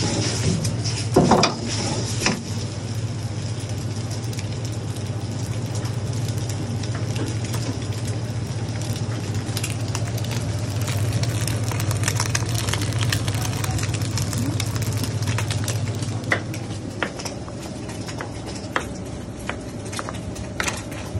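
Eggs frying in a steel wok over a gas wok burner, a metal ladle clinking and scraping against the pan, over a steady low hum. Sharp clicks are scattered throughout, with a loud cluster about a second in.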